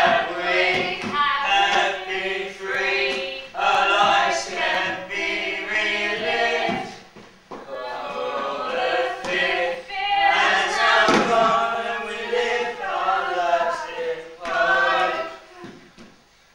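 Choral singing: several voices singing together in phrases, with a short break about halfway through, stopping shortly before the end.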